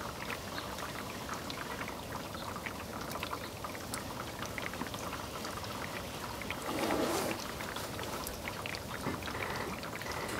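Heavy wet snow falling, a steady patter of many small ticks and drips much like light rain. A brief, louder, muffled sound swells up about two-thirds of the way through.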